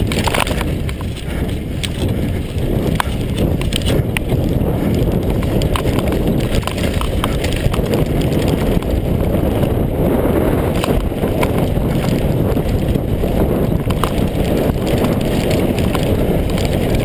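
Mondraker Kaiser downhill mountain bike ridden fast down a dirt and gravel trail: steady tyre and wind rumble, with frequent short rattles and knocks from the bike over the bumps.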